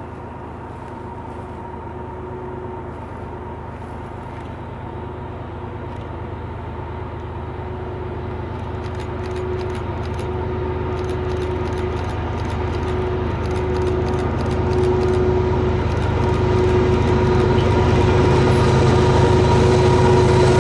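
Canadian Pacific GE ES44AC diesel-electric locomotive, with its V12 engine, leading an intermodal freight train as it approaches, growing steadily louder.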